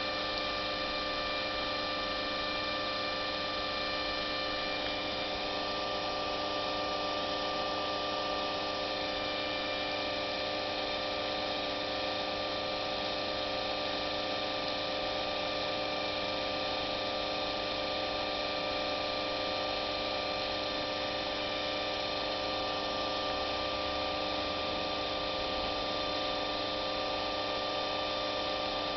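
A steady, unchanging hum made up of several constant tones.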